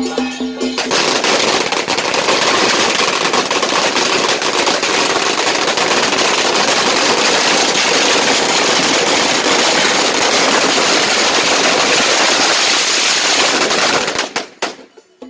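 A long string of firecrackers going off in a rapid, continuous crackle. It starts about a second in and cuts off near the end.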